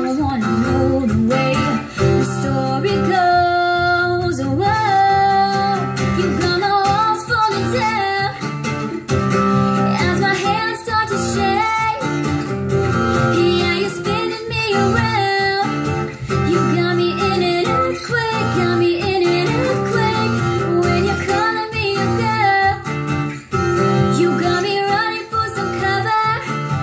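A woman singing a song to live acoustic guitar accompaniment, the guitar strummed steadily beneath her voice.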